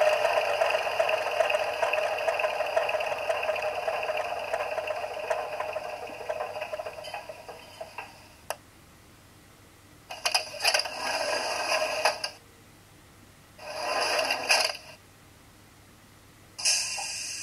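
Sound effects from the decoder of an Artitec H0 model NS Plan U diesel trainset, played through the model's small speaker. A steady humming machine sound fades away over the first eight seconds, then comes a single click, then three short noisy bursts about two and three seconds apart.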